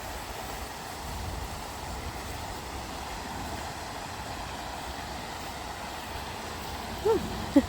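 Steady outdoor background rumble and hiss, with two short pitched calls that rise and fall near the end.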